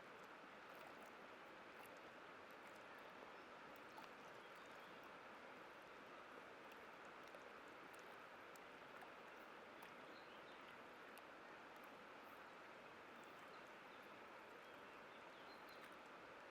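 Faint, steady rushing of a white-water river.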